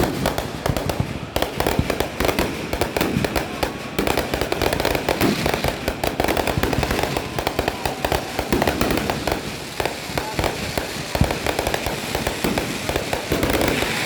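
Firecrackers going off in a rapid, continuous crackle of sharp pops.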